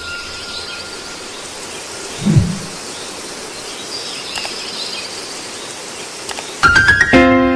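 Steady background hiss with faint high chirps, and a short low falling sound about two seconds in. Near the end a quick run of sharp notes sets off music with held tones.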